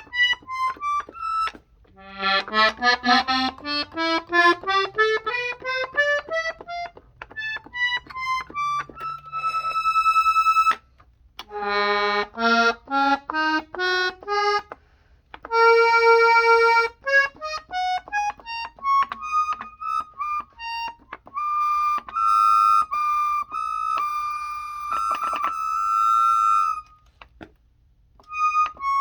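Hohner Tango II piano accordion's treble keys pressed one at a time on the '2' register: short, separate notes climbing up the keyboard in several runs, with a few notes held for a second or more.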